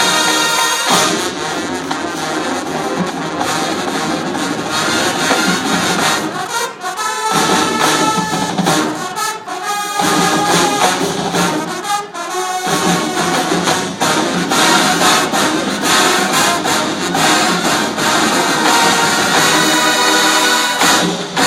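Marching band brass (trumpets and trombones) playing a spy-film medley. Between about seven and twelve seconds in, the low brass and drums drop out and the sound thins, then the full band comes back in.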